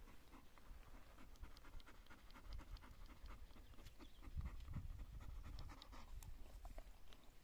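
A Deutsch Drahthaar (German wirehaired pointer) panting close by, mouth open and tongue out, with a low rumble swelling about halfway through.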